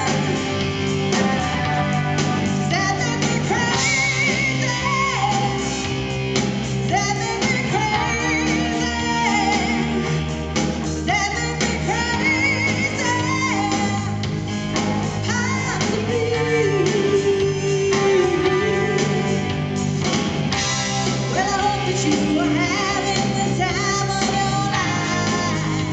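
Live rock cover band playing: a woman singing lead over electric guitars, bass guitar and drums, without a break.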